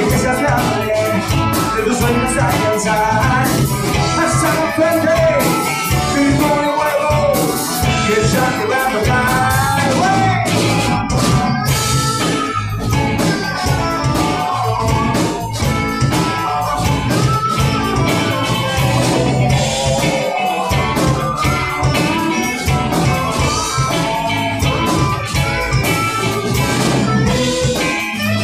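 Live rock band playing loud and steady, with electric guitars and a drum kit.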